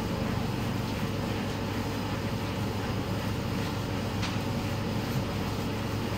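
Steady low mechanical hum, with one faint click about four seconds in.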